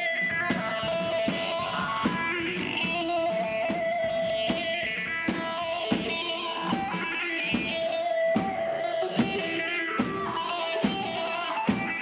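Live Turkish folk dance music for a line dance: a plucked string instrument plays the melody, with held notes, over a steady drum beat that strikes a little more than once a second.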